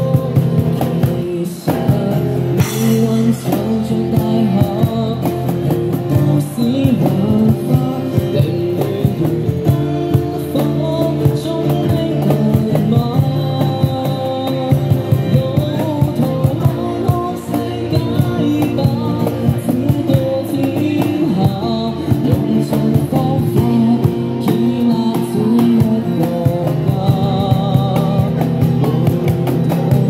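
A male vocalist singing a song into a microphone, amplified, with guitar accompaniment and a steady beat.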